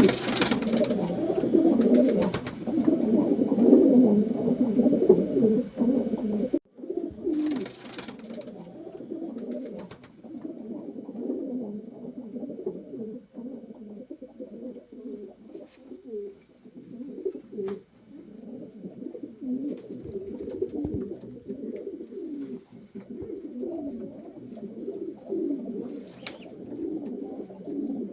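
Many racing pigeons cooing at once, their low calls overlapping continuously; louder for the first six seconds, then a brief cut-out and softer cooing after.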